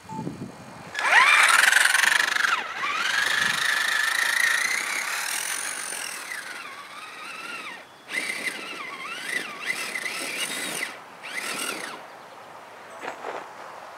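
Traxxas Summit RC truck's brushed 775 electric motor and geared drivetrain whining under throttle. The pitch rises and falls as the throttle is worked, and the whine breaks off briefly several times as the driver lets off. It is loudest about a second in.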